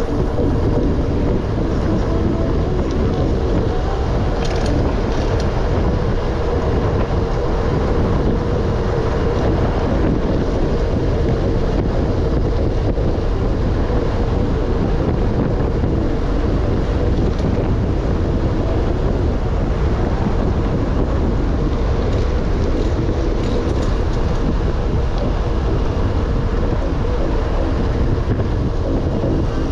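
Steady wind rushing over the camera microphone while riding a bicycle, with a low rumble and a faint steady hum throughout.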